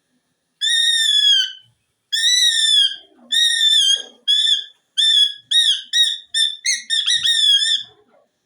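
Green pet parrot calling loudly in a series of high, harsh cries: the first two are drawn out for about a second each, then shorter calls come quicker and quicker.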